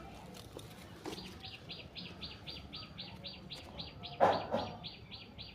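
A bird calling a fast, even series of identical high notes, about four a second, for about four seconds. A brief, louder and lower sound cuts in about four seconds in.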